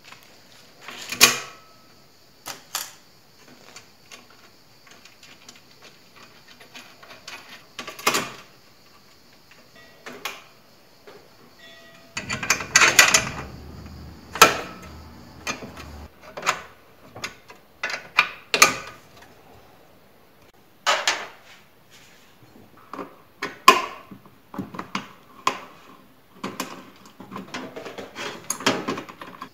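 Irregular metallic clicks and clinks of nuts, bolts and a spanner on the steel leg frame of a table-saw stand being bolted together and tightened, with a louder, busier stretch about 13 seconds in.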